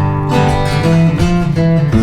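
Background music: strummed acoustic guitar playing an instrumental.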